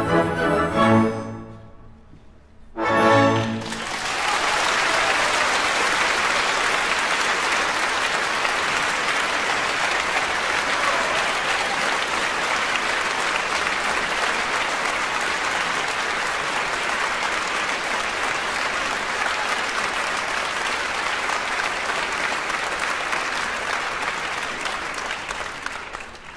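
Orchestra playing the closing bars of a ballet variation. It breaks off about a second in and ends on a short chord about three seconds in. A theatre audience then applauds steadily, fading near the end.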